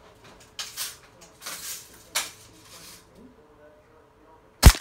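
A single sharp crack of a BB gun shot on a LEGO helicopter near the end, much the loudest sound. Before it come a few short scraping, rustling handling noises.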